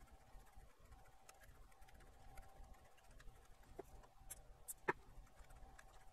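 Near silence with a few faint small clicks as the motorized volume potentiometer of a Sansui 8900ZDB receiver is turned back and forth by hand at its pulley, working in freshly sprayed DeoxIT F5 contact cleaner. The sharpest click comes about five seconds in.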